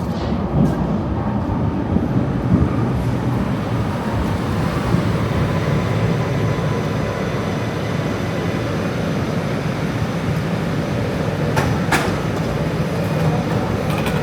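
A train running through the station: a steady, deep rumbling noise, with a few sharp metallic clicks about twelve seconds in and again near the end.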